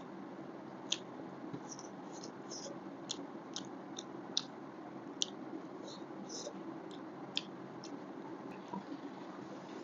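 Close-miked chewing and biting of chicken thigh, with sharp wet mouth clicks and squishes at irregular intervals over a steady low background hum.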